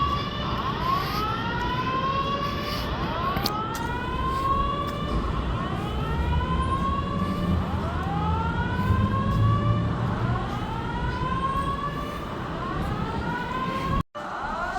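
Building fire alarm voice-evacuation speakers sounding a whoop tone: a rising sweep repeating about every one and a half seconds, with the sweeps overlapping one another. The sound cuts out for a moment near the end.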